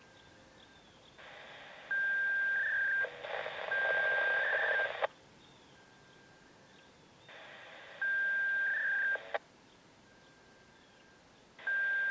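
Radio scanner receiving FSK data polling from the siren control system: four keyed transmissions a couple of seconds apart, each a burst of radio hiss carrying a steady high data tone with a brief warble, ending abruptly with a click.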